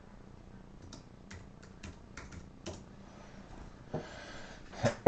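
Computer keyboard being typed on in short, irregular bursts of quiet key clicks, typing a web search, with a louder click near the end.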